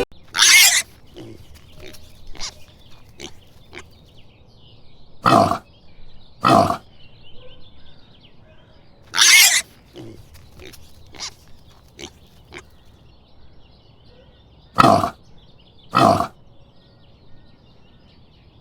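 Pigs grunting and squealing: about six loud short calls, the shrillest near the start and about nine seconds in, among many quieter grunts.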